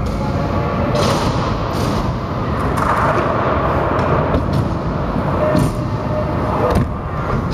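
Stunt scooter wheels rolling on a concrete skatepark floor, with several sharp knocks of the deck and wheels hitting the ramp and floor.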